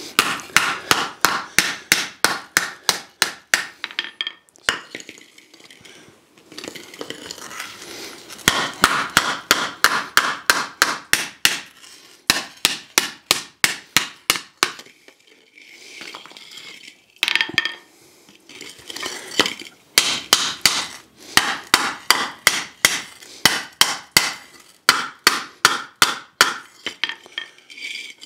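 Hand hammer striking a hot 12-gauge sheet-iron skillet blank on an anvil: quick runs of about four blows a second, broken by short pauses, as the rim of the pan is stood up.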